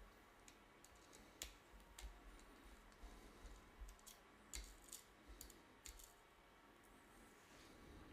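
Faint, irregular small clicks and taps of hard plastic and small tools being handled at close range, as the multimeter's LCD assembly is unscrewed and unlatched.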